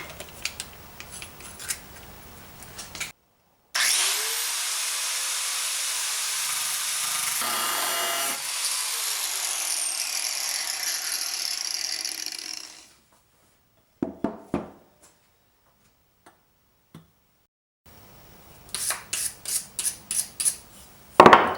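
A handheld rotary power tool spins up and runs with a steady high hiss and whine for about nine seconds, working the steel frame, then winds down. Later there are scattered clicks and a quick run of five or six taps ending in one loud knock.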